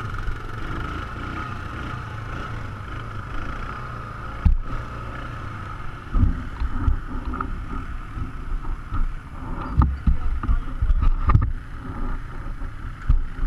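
An ATV engine running while riding a rough dirt trail, with a steady drone and irregular knocks and thumps from bumps, a sharp one about four and a half seconds in and a run of them through the second half.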